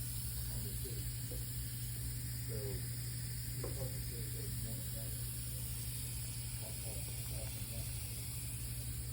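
Steady hiss with a constant low hum, under faint, indistinct voices.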